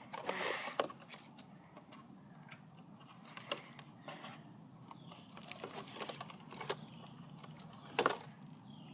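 Cardboard cereal box and tape being handled: a short rasp in the first second, then scattered small clicks and taps, the sharpest about eight seconds in.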